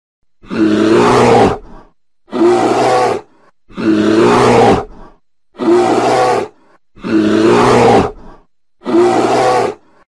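Bear growling six times in a row, each growl lasting about a second with a short pause between, the same growl repeated each time.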